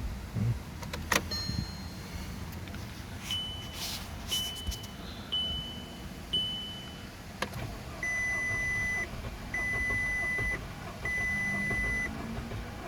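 Car warning chimes with no engine running. After a click, four short high beeps come about once a second. A sharp click follows, then longer, lower beeps repeat about every one and a half seconds.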